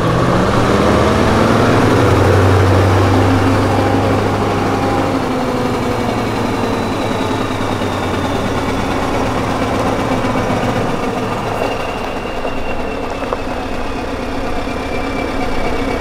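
Scania 770 S's V8 diesel running through custom-built exhaust stacks, revved up near the start and then easing back to a steady idle.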